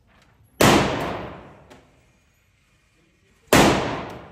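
Two shots from a 9mm semi-automatic rifle, about three seconds apart, each a sharp crack followed by a reverberant tail in the indoor range that dies away over about a second.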